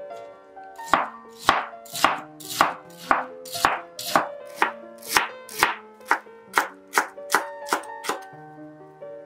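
Kitchen knife chopping celery on a wooden cutting board: a steady run of about sixteen sharp chops, roughly two a second, starting about a second in and quickening slightly near the end, over background music.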